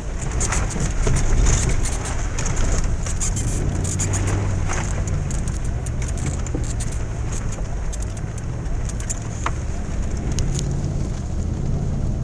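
Car engine running steadily under way, heard from inside the cabin, with frequent short rattles and knocks as the car rides over a bumpy dirt track.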